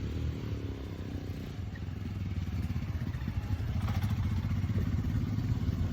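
Motorcycle engines running with a low, rapidly pulsing rumble that grows gradually louder.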